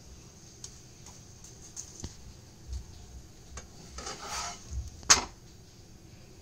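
A slotted spatula scraping and tapping against a non-stick frying pan as a paratha is turned over: a few light taps, a short scrape about four seconds in, then one sharp clack a second later, the loudest sound.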